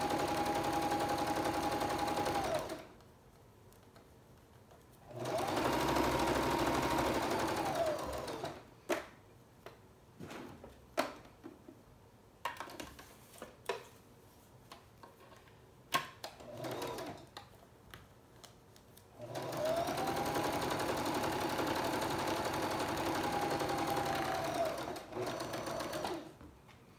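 Electric sewing machine stitching in three runs. Each run starts with a whine that rises as the machine speeds up and falls away as it stops. Between runs there are scattered light clicks and knocks from the fabric and machine being handled.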